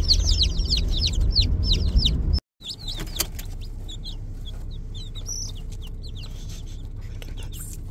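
A box of ten baby chicks peeping: many quick, high, downward-sliding peeps overlapping over a low rumble. About two and a half seconds in the sound cuts out briefly, and after that the peeping goes on quieter and sparser.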